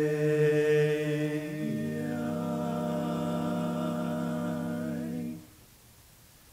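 Male a cappella vocal quartet holding a sustained chord in close harmony. The chord moves to lower notes about a second and a half in and is released about five seconds in.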